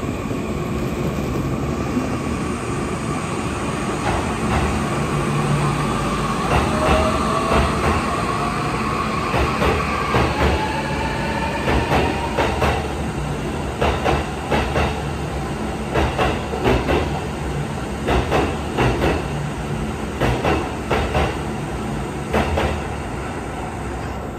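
Electric train running, with a motor whine rising in pitch during the first ten seconds, then the wheels clicking over rail joints in pairs about every two seconds.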